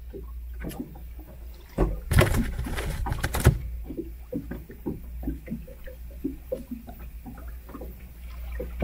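Handling noises in an inflatable PVC boat as a freshly caught zander is brought aboard: a loud burst of thumping and rustling about two seconds in, then a string of light, irregular knocks over a steady low rumble.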